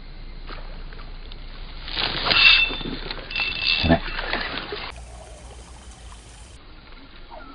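A snakehead striking a floating frog lure at the water's surface: splashing and sloshing from about two seconds in, ending in a heavier splash near four seconds.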